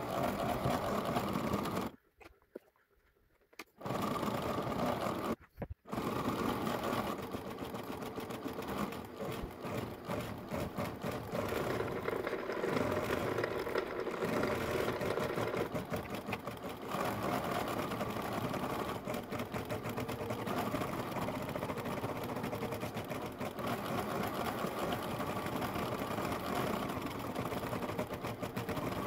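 Computerised embroidery machine stitching lettering into fleece: a steady, rapid run of needle strokes with the carriage whirring. The sound drops out twice briefly in the first six seconds, then runs on without a break.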